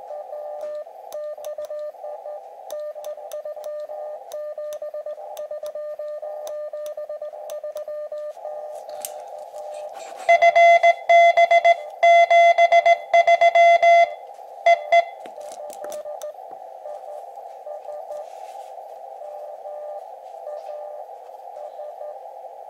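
Morse code (CW) from an Elecraft KX2 transceiver: a station's keyed tone comes through receiver hiss at first. About ten seconds in, a much louder burst of keyed Morse runs for about four seconds, then only the hiss of the band remains.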